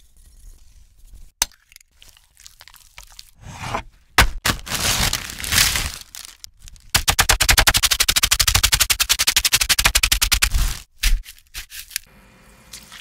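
Potato chips tumbling into a metal sheet pan with a loud rustle, then being crushed into crumbs in the pan with rapid, even crunching for about four seconds.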